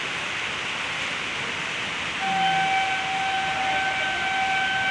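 Heavy rain falling in a steady hiss. About two seconds in, an approaching train's horn starts one long, steady note that is still sounding at the end.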